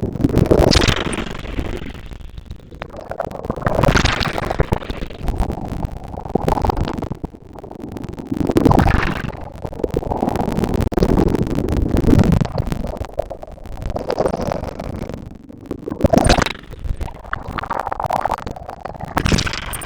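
Ocean waves breaking and washing up a beach, swelling and fading in surges a few seconds apart, with a heavy low rumble underneath.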